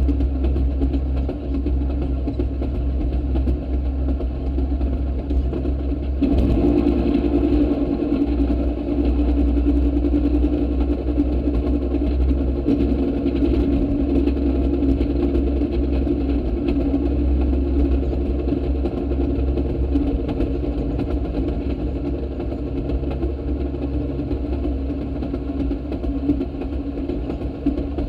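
Railroad speeder (track motorcar) travelling along the rails: its small engine runs steadily over the rumble of the wheels on the track, getting louder about six seconds in.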